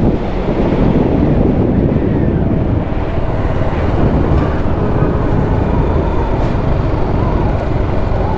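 Heavy wind noise on the microphone over the 312 cc single-cylinder engine of a TVS Apache RR310 sportbike running along at road speed.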